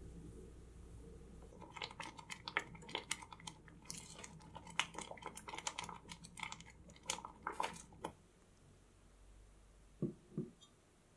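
Thick custard being stirred and scraped in a saucepan: a busy run of sticky squelches and small clicks of the utensil against the pan, over a low hum, stopping about eight seconds in. Two soft thuds follow near the end.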